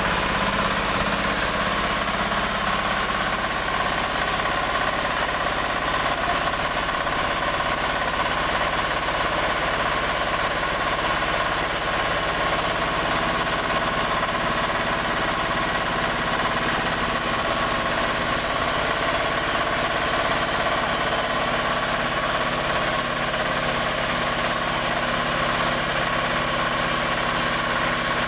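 An 18 hp diesel engine running steadily at a constant speed during a test run of a new sawmill.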